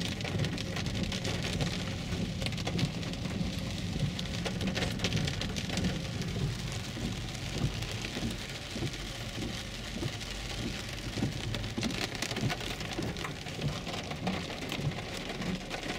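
Heavy rain pelting a car's roof and windshield, heard from inside the cabin: a dense, steady patter of countless drops over a low rumble.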